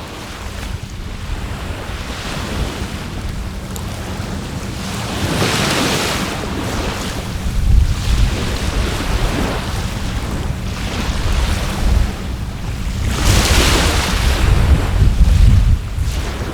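Sea waves breaking and washing up the shore, with two larger swells of surf about five seconds in and again near the end. Wind rumbles on the microphone throughout.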